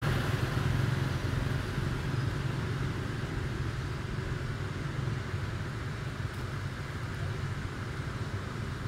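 A steady low rumble with an even hiss above it, easing off slightly toward the end.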